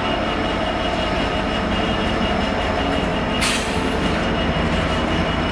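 Class 66 diesel freight locomotive passing close by: a steady low engine drone with wheels rolling on the rails. A short hiss comes about three and a half seconds in.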